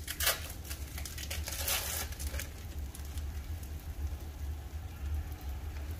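Buttered bread frying in a nonstick pan with light crackling and pattering, over a steady low hum. Brief crinkling noises come just after the start and again about two seconds in.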